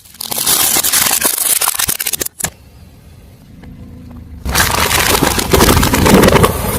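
Car tyre rolling over and crushing crunchy objects: a dense crackling and snapping for about two seconds that cuts off, then after a short lull a second stretch of crunching with the low rumble of the car.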